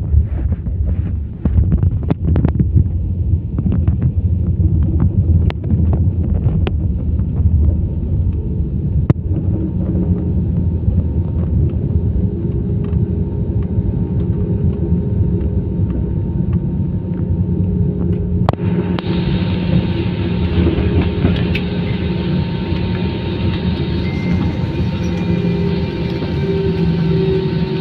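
Airliner cabin noise on the runway after landing: a loud, heavy low rumble with knocks and rattles from the landing gear rolling over the runway. The knocks are thick in the first ten seconds and thin out, while steady engine tones come up in the second half.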